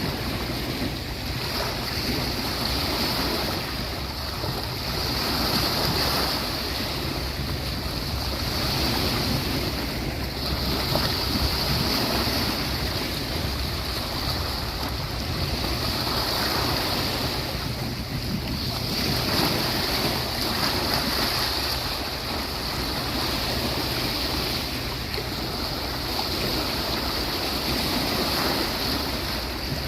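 Sea waves washing onto a beach: a continuous rush of surf that swells and eases every few seconds.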